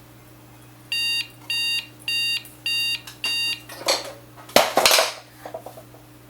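Electronic alarm beeping: five short, high-pitched beeps, each about a third of a second long and about one and a half a second, then a pause. A short, loud burst of noise comes about four and a half seconds in.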